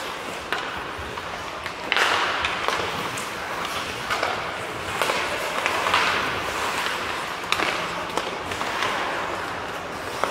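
Ice hockey skates scraping and carving on the ice, swelling and fading as players skate, with several sharp clacks of sticks on the puck and ice.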